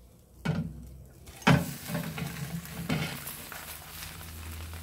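Potato pie slid back into a hot nonstick frying pan and the pan set on the gas stove: a knock about half a second in, a sharper clatter of the pan about a second and a half in, then steady sizzling as the turned side starts to fry in the oil.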